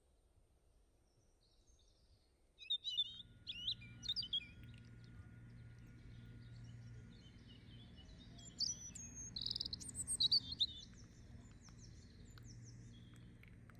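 Small birds chirping and tweeting in quick, short, high calls that start about three seconds in and are busiest a little past the middle, over a faint steady low hum.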